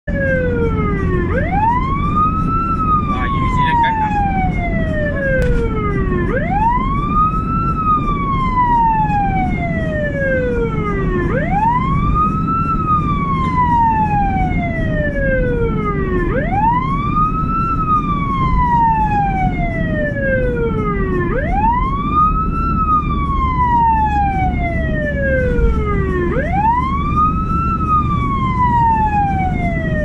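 Ambulance siren on its wail setting: each cycle rises quickly in pitch for about a second, then falls slowly for about four, repeating about every five seconds. A steady low rumble runs underneath.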